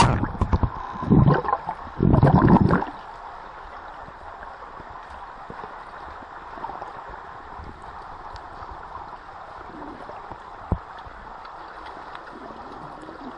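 Pool water heard through a submerged waterproof camera: splashing and bubbling for about the first three seconds as it goes under, then a steady, muffled underwater hiss. A single sharp knock is heard near the end.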